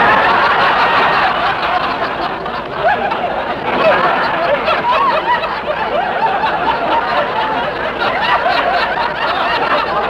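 Large studio audience laughing, long and loud, on a 1953 radio broadcast recording.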